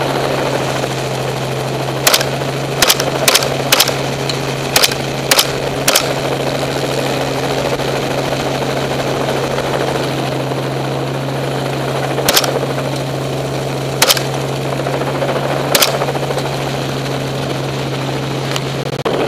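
Rifle shots fired from a helicopter over a steady drone of rotor and engine: a quick string of seven shots in about four seconds, then three more spaced well apart.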